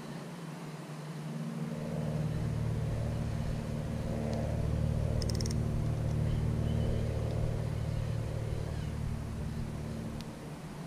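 A motor's steady low hum that comes up about two seconds in, holds, and eases off near the end, as of a vehicle passing at a distance. A brief click about five seconds in.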